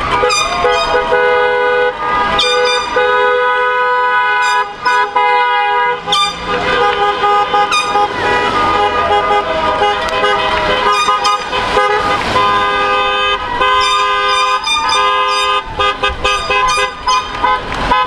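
Many car horns honking at once, overlapping without a break: long held blasts mixed with short repeated toots, from a slow line of passing cars.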